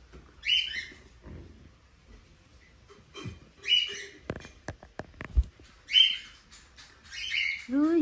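Small pet parrot giving four short shrill chirps, spaced a second or more apart. A few sharp clicks from the phone being handled come in the middle.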